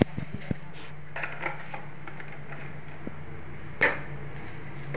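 Curry leaves tipped from a plastic jar into a tempering pan: a knock of the jar against the aluminium pan at the start, then light ticks and clinks, and one sharp metal knock about four seconds in, likely the ladle striking the pan. A steady low hum runs underneath.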